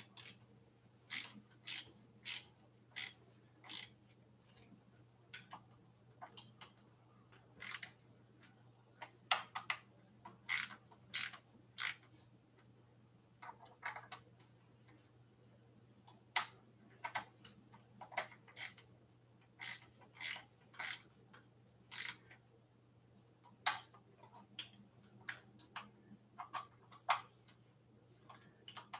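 Ratchet wrench clicking in short runs, about two clicks a second with pauses, as the handlebar stem clamp bolts of an e-bike are tightened.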